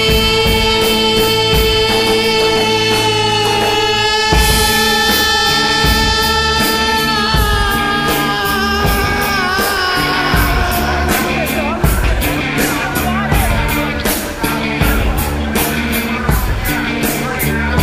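Rock music with singing over a steady drum beat; a long held note runs through the first ten seconds or so, then the music becomes busier.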